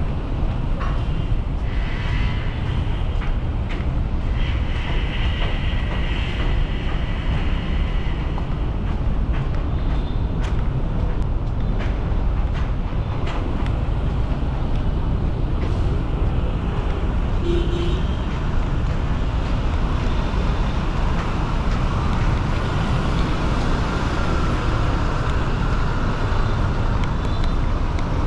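Busy city street traffic: a steady rumble of passing vehicles, with a few brief higher tones standing out in places.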